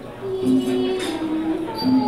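Traditional Thai music for a classical dance, with held melodic notes moving from one pitch to the next and a sharp metallic clink about a second in.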